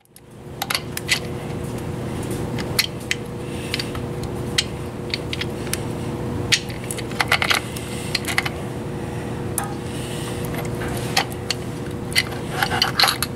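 Harley-Davidson Twin Cam primary chain and small metal parts clinking and scraping as they are handled by hand: a string of sharp, irregular metallic clicks, with small clusters about seven seconds in and near the end, over a steady background hum.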